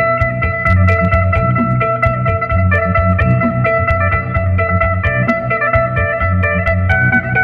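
Electric phin, the Isan Thai lute, played through an amplifier: a quick run of plucked melody notes over a held drone note, with a regular low bass pulse underneath.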